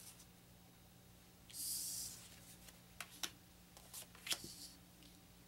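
Cardboard game cards being handled on a wooden table: a brief papery swish about a second and a half in as a card slides, then several light taps and clicks as cards are turned over and set down.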